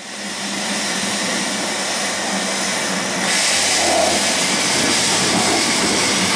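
Historic electric tram running along its rails: a steady motor hum under wheel and rail noise, which grows louder about three seconds in.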